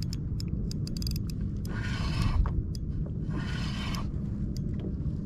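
Spinning reel being cranked against a hooked fish: spells of gear whirring with quick clicks, over a steady low rumble.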